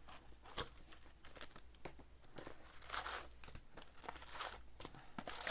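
Trading card pack wrapper being torn open and crinkled by hand, an uneven series of rustles and crackles.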